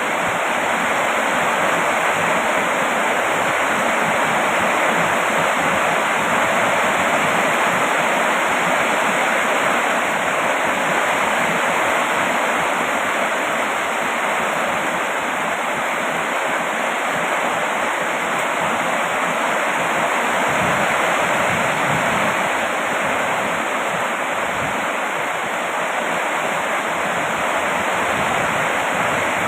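Steady rain falling, a dense, even hiss with no single drops or other sounds standing out.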